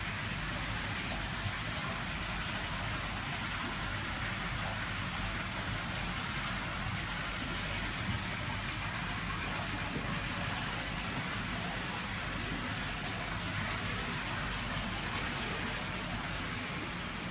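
Steady rush of water in a fish-rearing tank, with a low hum underneath.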